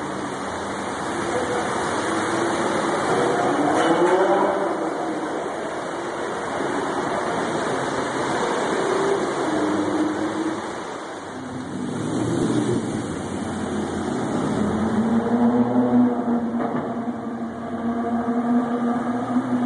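Cars driving through a road tunnel, their engine notes rising and falling in pitch as they pass. Near the end one engine's steadier tone grows louder.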